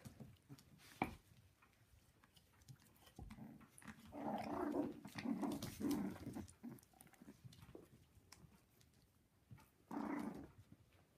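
Havanese puppies growling in play while they wrestle, in a longer stretch of a few seconds near the middle and a shorter one near the end. A sharp click about a second in.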